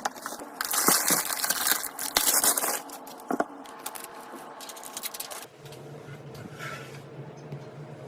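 Crinkling, scraping and clicking as computer parts and their packaging are handled during a PC build, loudest in the first few seconds. About five and a half seconds in, a steady low hum starts underneath.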